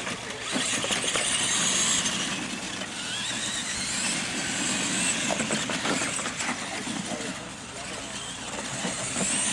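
Radio-controlled monster trucks racing across dirt, their motors and gears whining up and down in pitch as they accelerate, over the rush of tyres on dirt.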